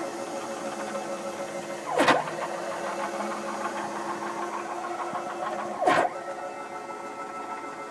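Stepper motors driving a home-built CNC router gantry along its screw: a steady whine of several tones, broken twice, about two seconds in and again near six seconds, by a brief, louder sweep where the pitch drops and climbs back as the axis reverses direction.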